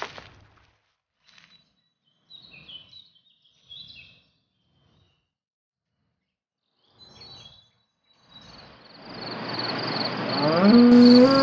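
Soft footsteps at the start, then a few short bird chirps over quiet rural ambience. Toward the end a steady pulsing insect chirr fades in with night air, and a long pitched call begins, gliding up and then holding.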